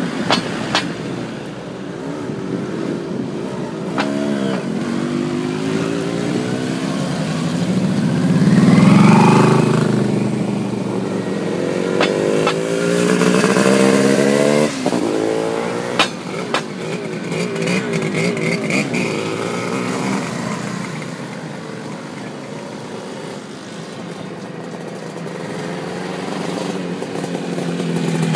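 Air-cooled motorcycles riding past one after another, each engine revving up as it pulls away, the pitch rising through the gears, with a loud close pass near the middle.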